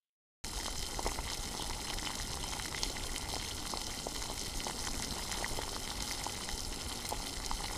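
Chicken curry bubbling in a pot while a metal spoon stirs it, with many small clicks and crackles; the sound starts abruptly about half a second in.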